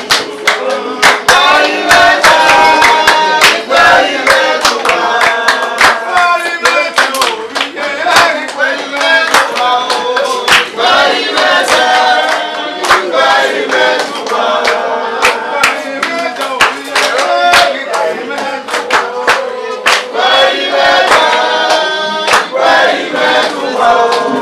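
A group of voices singing a song together, with hands clapping along in a steady beat of about two claps a second.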